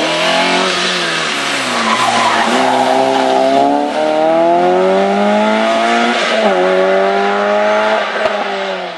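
Rally car engine at high revs as the car accelerates past and away, its pitch climbing and then dropping back at gear changes several times. It fades near the end as the car goes out of earshot.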